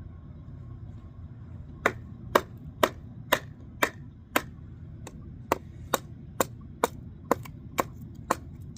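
Kindling being chopped: a quick series of sharp strikes on wood, about two a second, starting about two seconds in with a brief pause midway.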